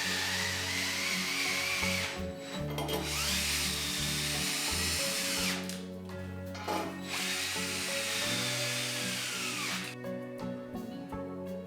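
Handheld electric drill running in three long bursts with a wavering whine, stopping about ten seconds in. Music plays underneath.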